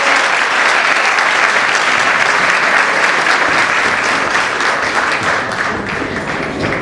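Sustained applause from the audience and the cast on stage, many hands clapping together, easing off slightly near the end.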